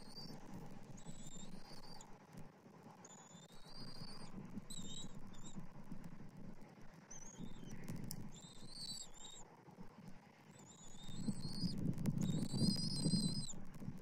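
Bald eagles chirping: a series of short, high, thin calls repeating every second or so while an adult feeds the eaglet on the nest. A low rumble of noise swells up about eleven seconds in.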